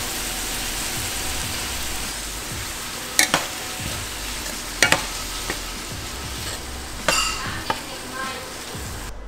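Diced tomatoes, onions, garlic and ginger sizzling in oil in a stainless steel skillet, stirred with a metal utensil that clinks against the pan a few times.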